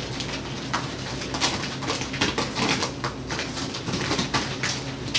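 Ferrets playing on a rumpled sheet and ribbed tubing: a busy run of rustles and scuffles with quick clucking dooks, densest in the middle. A steady low hum runs underneath.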